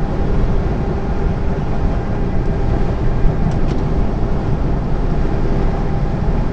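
Steady drone inside a lorry's cab cruising at motorway speed: engine, tyre and wind noise.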